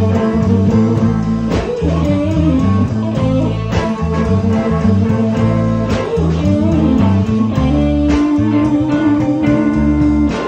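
Blues band music: guitar over a bass line, with regular drum hits.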